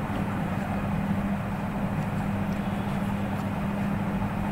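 Steady low hum with a background hiss, unchanging throughout.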